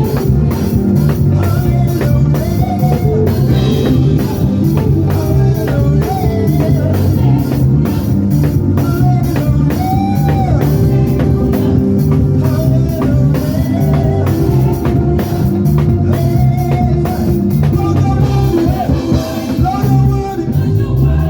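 Gospel praise and worship band music: a drum kit driving a steady beat over a heavy bass line, with a gliding melody line on top.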